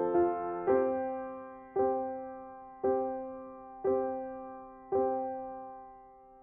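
Background piano music: slow chords struck about once a second, each left to ring and fade, the last one dying away near the end.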